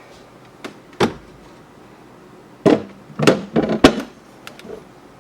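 A few sharp knocks and clatters of kitchen items being handled and set down, a single knock about a second in and a quick run of louder clatters past the middle.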